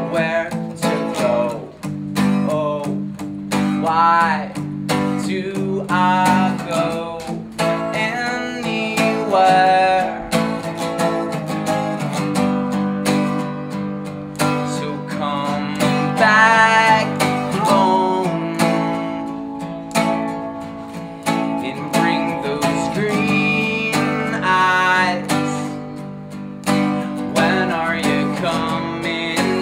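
A man singing over a strummed acoustic guitar, the chords steady throughout while his sung lines come and go, some held notes wavering in pitch.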